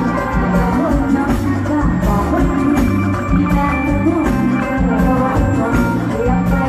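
Live band music played loud, with a steady drum beat, a repeating bass line and a melodic lead.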